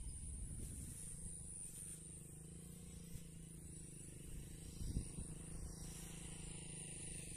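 Faint outdoor ambience while walking: low wind rumble on the phone microphone, a faint steady high hiss, and a soft bump about five seconds in.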